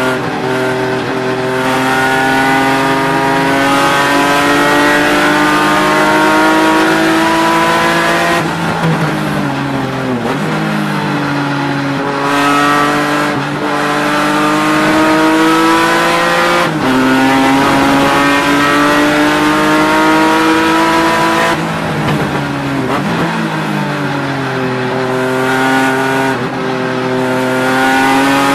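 BMW E36 race car's engine at racing speed, heard from inside the cockpit. It revs up through the gears, its pitch dropping sharply at each upshift, and twice falls away over a couple of seconds before pulling hard again.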